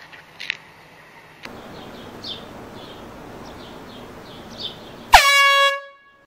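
A loud horn blast about five seconds in: one steady pitch with many overtones, swooping down briefly at the start and cutting off after about half a second. Before it there is faint outdoor background with a few small bird-like chirps.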